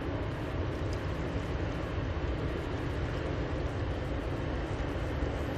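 Steady low rumble from the diesel engine of a loaded Rhine motor cargo ship passing close by, even in level throughout.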